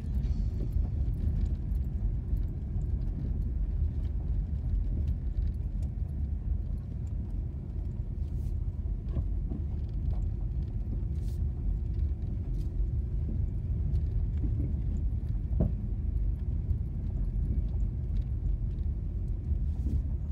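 A car driving slowly on a gravel road, heard from inside the cabin: a steady low rumble of tyres and engine, with scattered ticks of loose stones under the tyres.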